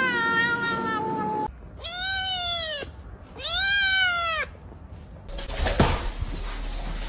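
Domestic cat meowing: a drawn-out call that dips slightly in pitch and ends about a second and a half in, then two long meows, each rising and then falling in pitch. Near the end comes a stretch of noise with a single sharp knock.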